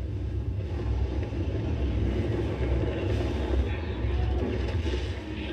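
A low, steady rumble with a rushing noise over it, from the TV episode's soundtrack.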